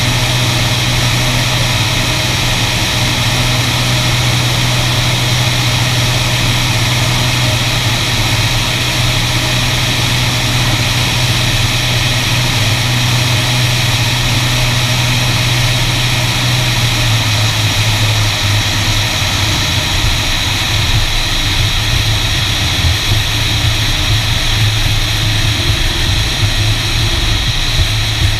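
Beriev Be-103 amphibian's twin piston engines running on final approach, with wind noise on an outside-mounted camera. About two-thirds of the way through, the steady engine drone drops in pitch as power comes off for the landing. A rougher, uneven rumble of the wheels rolling on the runway follows.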